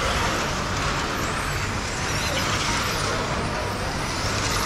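Several brushless-electric 1/10 modified touring cars running at speed on a track: a steady wash of electric motor whine and tyre noise, with faint whines rising and falling as cars pass.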